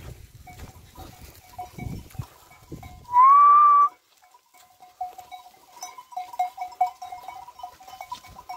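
A shepherd's single loud whistle, one clear held note that rises slightly at the start and lasts about a second, about three seconds in, aimed at a flock of sheep. Around it, faint quick repeated tones come from the moving flock.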